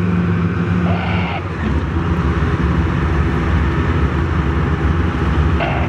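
Several Type 74 tanks driving in formation, their diesel engines running steadily, with the low engine sound growing stronger under two seconds in. A few brief higher-pitched sounds cut in about a second in and near the end.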